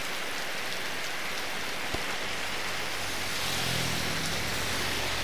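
Heavy rain falling steadily on the road and the shelter roof. From about three seconds in, a motor scooter passes on the wet road, its engine hum and tyre spray rising over the rain. There is a single sharp click about two seconds in.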